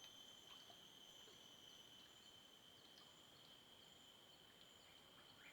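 Faint outdoor ambience: an insect's steady high-pitched trill, with a few faint chirps.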